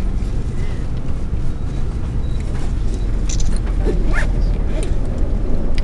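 Creaks and clicks of saddle leather and tack from horses being ridden at a walk, a few sharper ones about halfway through, over a steady low rumble.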